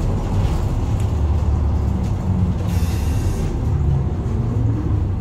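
Isuzu Erga Mio city bus heard from inside the cabin, its four-cylinder turbo-diesel running with a low hum. A short hiss of air comes about two and a half seconds in, and the engine note rises near the end.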